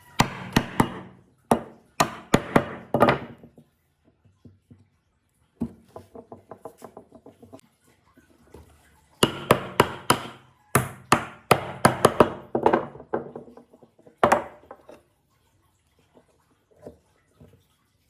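Hammering on wood: bursts of sharp blows, with a run of quicker, lighter taps about six a second in the middle.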